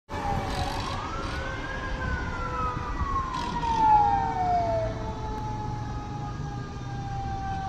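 Fire engine siren approaching: one wail that rises for about two seconds and falls away by about five seconds in, over a second, steadier siren tone that slowly sinks in pitch.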